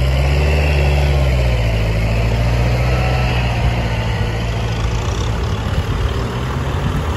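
Kubota tractor's diesel engine running steadily under load as it drives through wet mud pulling a rotary tiller; the low engine hum eases a little about a second and a half in.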